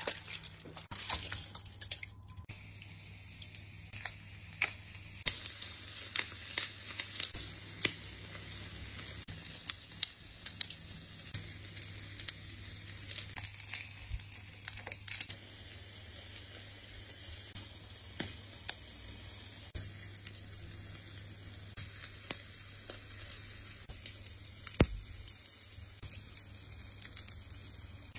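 Food sizzling on a hot grill grate, with frequent small crackles and pops. Aluminium foil crinkles at the start as tongs work a foil packet. A steady low hum runs underneath.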